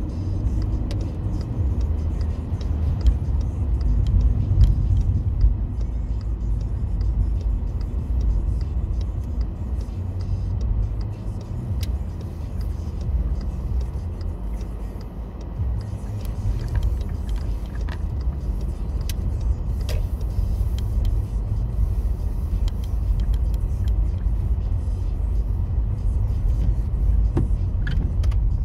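Steady low road and engine rumble heard inside a moving car's cabin, with a few faint ticks in the second half.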